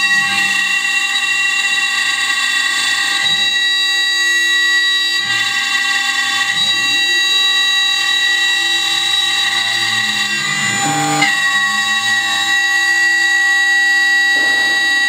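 CNC wood router spindle whining steadily as its end mill routes a relief into a wooden board, with a rougher cutting noise underneath that shifts with the load. The whine dips and wavers briefly about eleven seconds in, then settles again.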